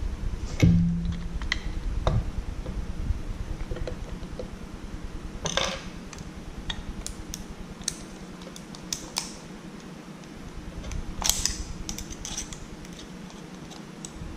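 Small metal parts of a Kwikset doorknob lock clicking, tapping and scraping as the lock cylinder is forced out of the knob. A louder knock comes about half a second in, and two brief scrapes come around the middle and again later.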